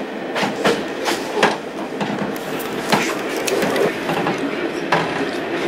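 Heard from inside an old railway passenger carriage as the train runs along: a steady rumble with irregular sharp clicks and knocks from the wheels and the rattling carriage.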